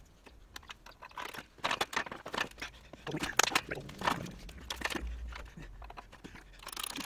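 Irregular clicks, scrapes and knocks of metal being handled at a hydraulic shop press and a heavy steel wheel hub and drum.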